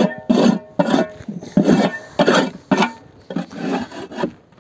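Metal hive tool scraping the inside of a wooden beehive box in quick, repeated strokes, about two a second, getting softer near the end: the mechanical scraping-clean of the hive before it is disinfected.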